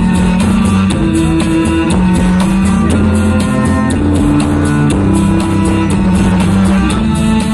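Live band music: sustained low string and keyboard notes over a steady, fast ticking beat.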